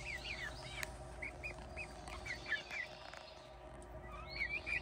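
Chickens making short, soft chirping calls, scattered and overlapping, with a single faint click just under a second in.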